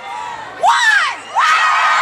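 Large crowd cheering and screaming, with high-pitched whoops from voices close by: a short rising-and-falling cry a little over half a second in, then a long held scream from about halfway.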